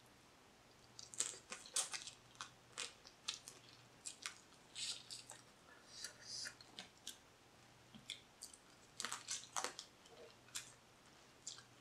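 Blue crab shell and leg pieces cracking and snapping under the fingers as the legs are broken apart and picked for meat: a string of faint, irregular clicks and crackles.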